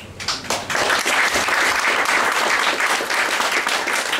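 Audience applauding. It starts with a few scattered claps and fills out into steady applause within the first second.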